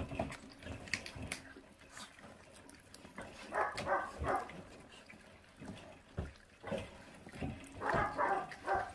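Feral-dog puppies chewing and tearing raw rib meat and bone, with scattered clicks and crunches. Two short bursts of puppy growling come over the food, about midway and near the end.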